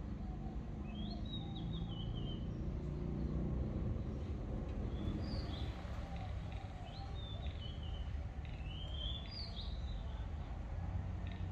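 Birds chirping in short gliding phrases, about four times, over a steady low background rumble.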